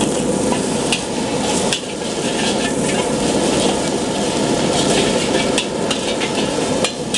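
Egg sizzling in a large steel wok while a metal spatula stirs and scrapes it, with several sharp clinks of the spatula against the wok.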